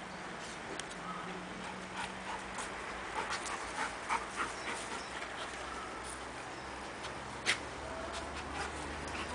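Central Asian shepherd dogs moving about and sniffing: a run of short clicks and snuffles about two to five seconds in, and one sharper click about seven and a half seconds in, over a steady background hiss.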